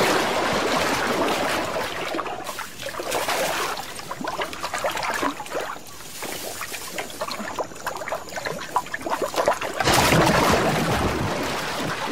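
Water splashing, dripping and trickling as an arowana leaps out of the flooded-forest water and falls back. There is a loud splash at the start and another about ten seconds in, with smaller splashes and drips between.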